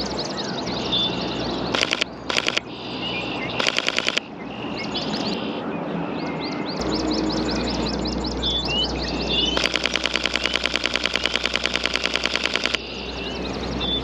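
Sony A7IV mechanical shutter firing in rapid bursts at about ten frames a second: three short bursts in the first four seconds, then one long burst of about three seconds past the middle. Birds chirp repeatedly in the background.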